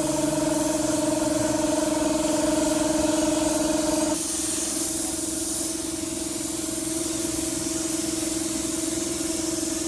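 Steady spraying hiss over a steady machine hum. The hum's upper tones drop off about four seconds in.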